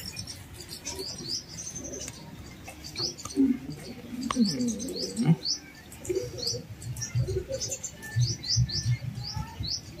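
Small birds chirping: short rising chirps, repeated many times. Low pigeon cooing comes in a few seconds in and is the loudest part.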